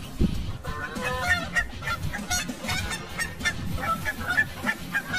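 Canada goose honking repeatedly, a run of short harsh calls that starts under a second in.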